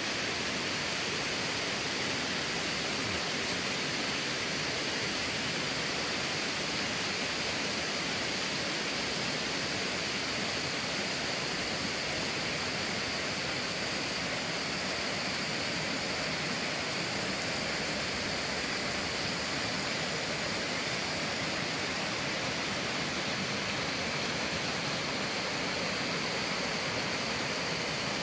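Mountain stream rushing over rock cascades: a steady, even rush of white water.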